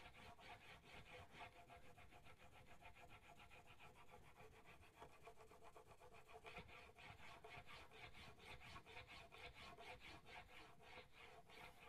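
Faint, rapid back-and-forth scraping of a hand-forged chisel's bevel over 2,000-grit (7.5 micron) abrasive, the chisel held in a Sharp Skate honing jig, in even strokes throughout. This is honing to raise a burr on the edge.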